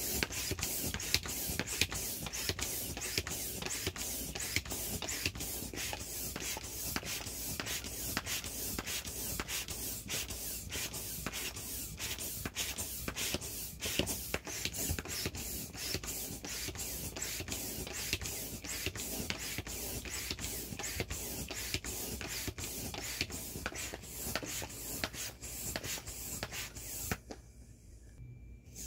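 Electric air pump running, blowing air through a hose into the inflatable ATV's vinyl wheels, with a low hum under a rapid, uneven scratchy crackle. The sound drops away near the end.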